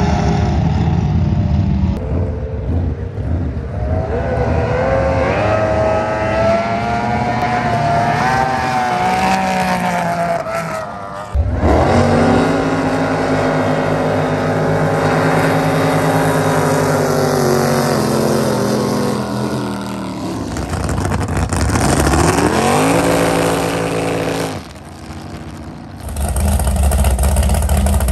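Drag-racing boat engines run at full throttle, their pitch climbing as the boats accelerate down the course, over several back-to-back takes. Near the end a loud, low engine rumble takes over.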